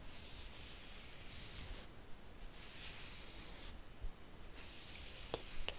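Soft hissing close to a microphone, coming in three bursts of about a second each, then a few sharp clicks near the end.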